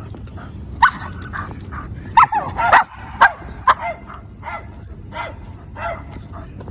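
A dog barking and yipping in a quick series of short calls, loudest and most crowded a couple of seconds in.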